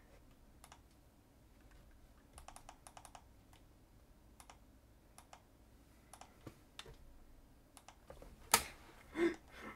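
Faint computer keyboard and mouse clicks: scattered single clicks, a quick run of keystrokes about two and a half seconds in, and a louder sharp click near the end.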